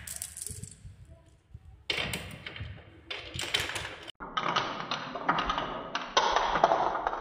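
Many marbles clattering and rolling along a wooden marble-run track, a dense rattle of small clicks and knocks that starts about two seconds in and grows louder near the end.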